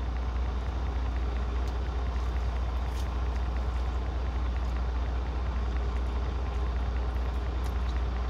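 Steady low rumble of a semi-truck's engine idling, heard inside the cab, with a few faint clicks.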